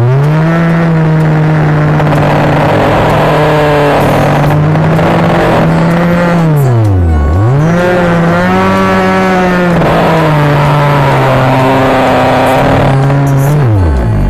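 Small engine revved up to a high, steady full-throttle pitch and held for several seconds, then dropped back to idle and revved up and held again, falling to idle near the end.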